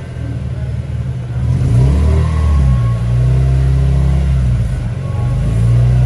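Car engine running at low revs as the car creeps forward, with the revs rising and falling a few times under light throttle. The exhaust is a modified twin exhaust.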